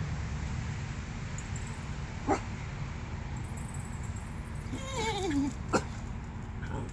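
A dog gives a short bark about two seconds in, then a falling whine around five seconds in, followed at once by another short bark, over a steady low rumble.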